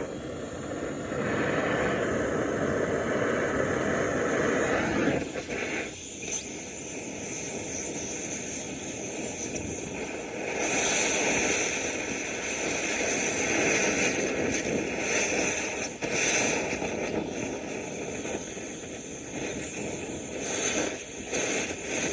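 Gas cutting torch running with a steady hiss, cutting into a stuck part to break it loose; the sound changes in strength and tone about a second in, near six seconds and near eleven seconds.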